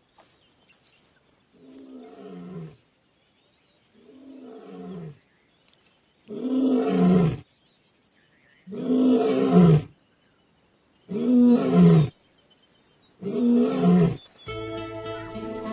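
Male lion roaring in a bout: two soft moaning grunts build into four full, much louder roars about two seconds apart, each sliding down in pitch. Background music comes in near the end.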